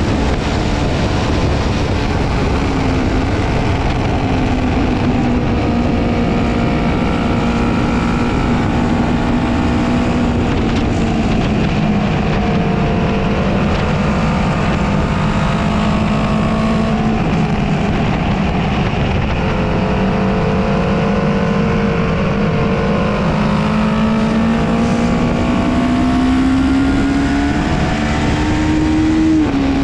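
Honda CB500 parallel-twin engine heard onboard at track speed under heavy wind rush. The engine note holds fairly steady and sags a little through the middle, then climbs over the last several seconds and drops sharply near the end at an upshift.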